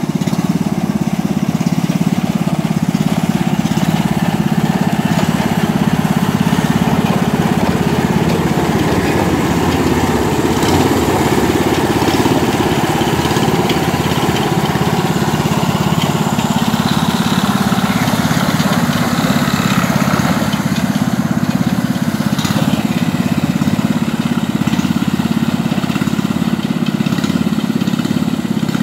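Small single-cylinder petrol engine of a rice thresher running steadily, with a constant low drone.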